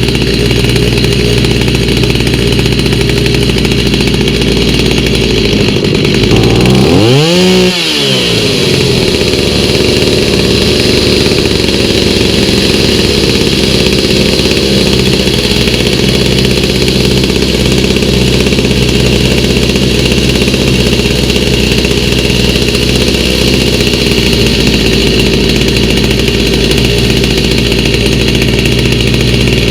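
Stihl MS290 two-stroke chainsaw engine running steadily on its newly fitted aftermarket carburetor, with one quick blip of the throttle about seven seconds in, pitch rising and falling back.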